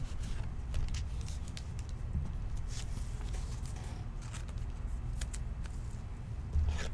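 Light scattered clicks and rustles of trading cards being handled and sorted, over a low steady hum.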